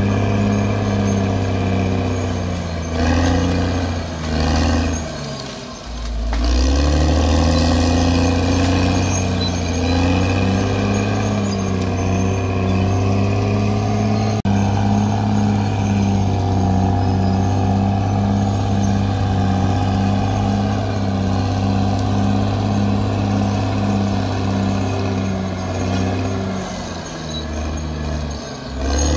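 CAT D6R XL crawler dozer's diesel engine running steadily as the machine works soil on the slope. Its note wavers and drops about three to six seconds in, then settles into a steady run with a regular pulsing throb, and shifts again near the end.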